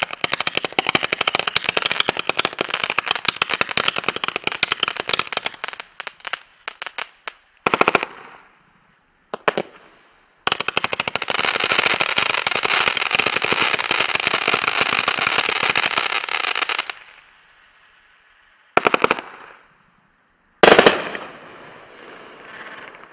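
Heavy Load Hellcat sprinkler cake firing. A rapid string of launch pops for about six seconds thins into a few separate bursts, followed by about six seconds of dense, continuous crackle that cuts off suddenly. Two loud bursts come near the end, the last trailing off in fading crackle.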